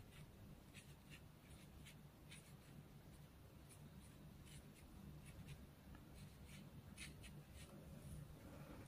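Faint, irregular soft taps and scratches of a Chinese ink brush dabbing short strokes onto paper, about one or two a second, over a low steady hum.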